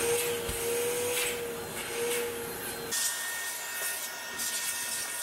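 VacMaster 12-gallon, 5.5 hp wet/dry shop vac running, air rushing through its hose with the motor set to blow. About three seconds in, its steady hum gives way to a higher whine.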